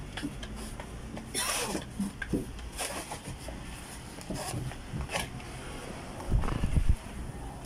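Scattered rubbing, scraping and knocking of a spin mop being worked over a van's floor, with a louder low thudding about six seconds in as an arm brushes right by the microphone.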